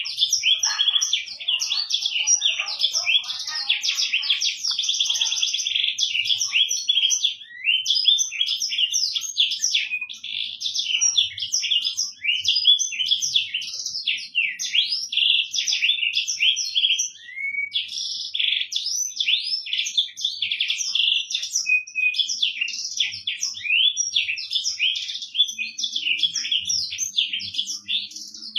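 Black-throated canary (blackthroat) singing a long, fast, unbroken song of twittering trills and chirps, with brief pauses about 7 and 17 seconds in.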